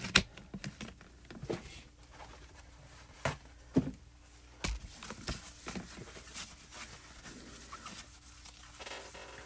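Scattered small knocks and clicks of craft items being handled and set down on a glass craft mat. From about halfway through comes a soft rustle of a wet wipe rubbing across the mat.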